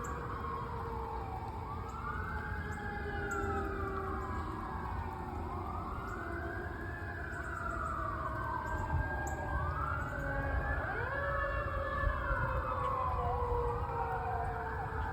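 Fire engine sirens wailing, at least two overlapping out of step, each rising and falling over a few seconds, over a steady low rumble.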